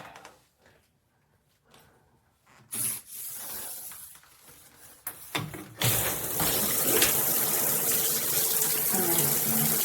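Water from a shower system, quiet at first, with a short hiss of spray about three seconds in and a couple of clicks. Near six seconds in the water comes on full and sprays steadily as the outlet is switched over.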